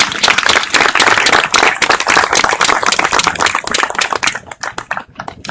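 Audience applauding a speaker's introduction, the clapping thinning to a few scattered claps after about four seconds.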